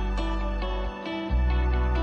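Background music: short notes over a held bass, the bass dipping briefly and changing a little over a second in.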